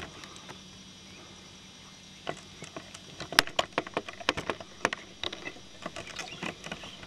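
Irregular clicks and scratches, dense from about two seconds in and loudest a little after three seconds, over a low, steady background: handling noise on a handheld camcorder as it is moved and reframed.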